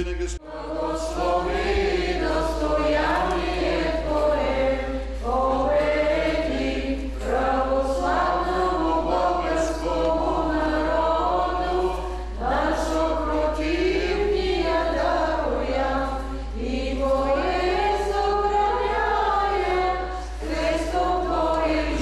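Choir chanting Eastern Orthodox liturgical hymns, several voices holding long, wavering notes in phrases a few seconds long.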